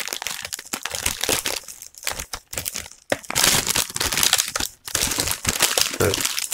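Plastic snack wrapper crinkling and crackling as it is slit open with a knife and a plastic tray of chocolate-coated mini rolls is pulled out of it, in a dense, irregular run of crackles.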